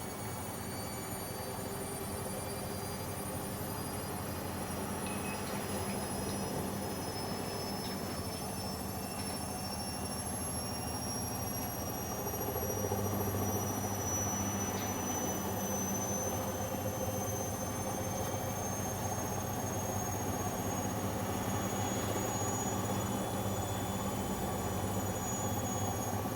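Bosch Avantixx 7 WAQ2849S washing machine running with a steady hum and a high motor whine that slowly rises in pitch as the drum spins up, getting a little louder about halfway through.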